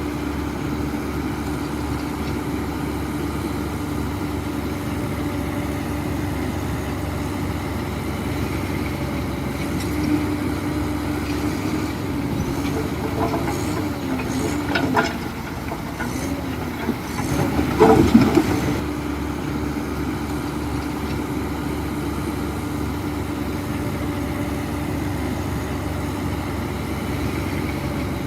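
Heavy diesel engine of construction machinery running steadily. Past the middle its pitch wavers for a few seconds, with knocks and a louder clatter about eighteen seconds in.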